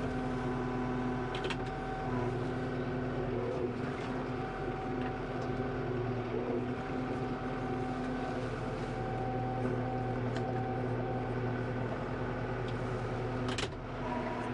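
Kubota M5-091 tractor's four-cylinder diesel engine running steadily, heard from inside the cab. Two sharp clicks, about a second and a half in and near the end.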